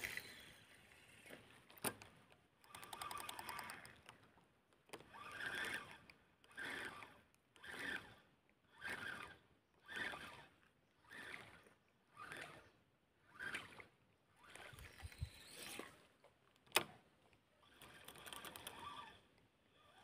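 Faint rhythmic swishing, about one stroke a second, as a lure is worked back on a spinning rod and reel, with patches of fast clicking and a couple of sharp clicks.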